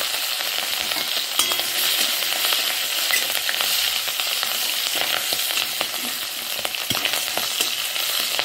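Tempering spices and slit green chillies sizzling in hot mustard oil in a kadai, a steady hiss dotted with small crackles, while a metal spatula stirs and scrapes across the pan.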